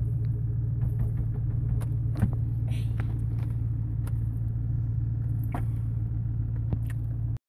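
Steady low rumble of a car's engine and road noise heard from inside the cabin while driving, with a few faint clicks. It cuts off suddenly near the end.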